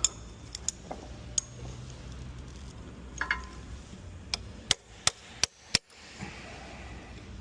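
Hammer tapping a screw extractor (easy out) into a drilled broken bolt: a few scattered sharp metal knocks, some briefly ringing, then a run of five hard taps about a third of a second apart.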